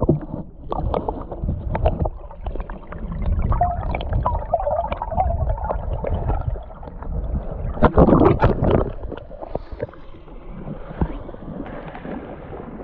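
Water splashing and gurgling in a shallow creek as a spawning salmon thrashes close by, with many short slaps and the loudest splash about eight seconds in.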